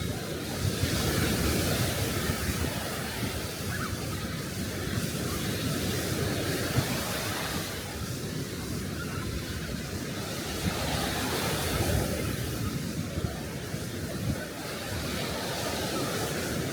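Sea waves breaking and washing up on a beach: a steady hiss of surf that swells louder twice.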